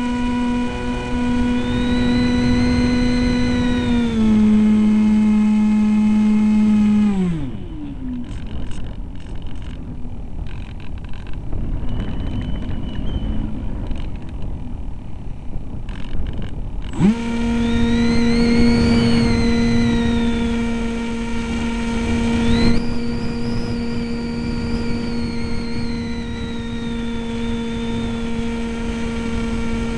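EasyStar RC plane's 2835/16 brushless electric motor and propeller running with a steady high whine, heard from on board. The whine drops in pitch about four seconds in and winds down to a stop at about seven seconds, leaving wind rushing past while the plane glides. At about seventeen seconds the motor spins up again sharply and runs steady.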